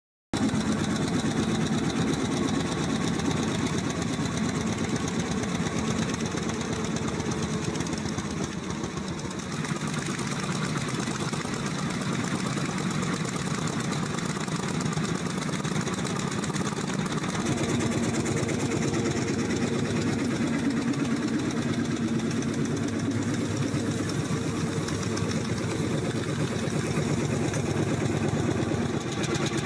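Old tractor's engine running steadily while it pulls a plough.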